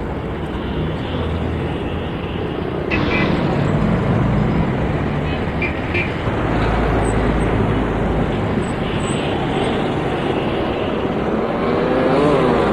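Busy main-road traffic: a steady din of passing vehicles' engines and tyres, which grows suddenly louder about three seconds in. Near the end one engine rises and falls in pitch as it goes by.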